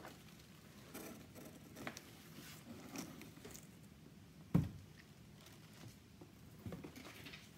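Faint handling of a cardboard shipping box and a plastic-wrapped bag: scattered rustles and light taps, with one thump a little past halfway.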